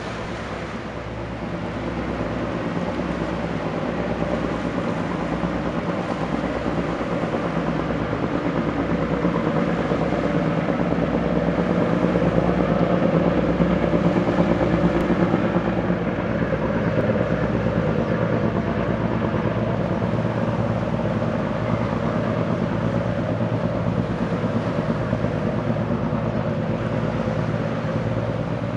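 Small harbour tug's diesel engine running under way with a steady low pulsing throb, over the rushing wash of its bow wave. It grows louder as the tug passes close, loudest about halfway through, then eases off.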